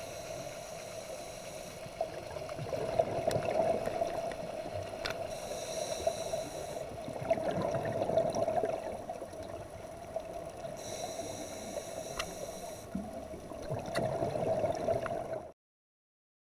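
Scuba regulator breathing heard underwater: a hiss on each inhale followed by a gurgling rush of exhaled bubbles, about every five seconds, over a steady hum. The sound cuts off suddenly near the end.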